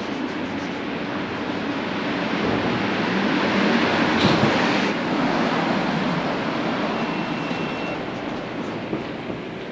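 A vehicle passing along the street. Its noise swells to a peak about four seconds in and then fades away.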